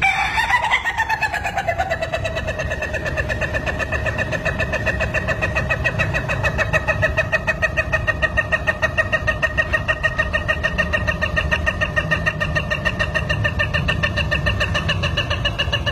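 Rooster crowing one extremely long, unbroken crow: a single held note that rises briefly at the start, then stays level with a fast quaver for about sixteen seconds.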